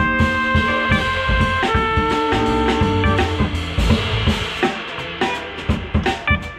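Live small-group jazz in a swing feel: drum kit, upright bass and horns playing together. Horns hold notes for about the first three seconds, then the drums and cymbals carry the sound with only short horn figures.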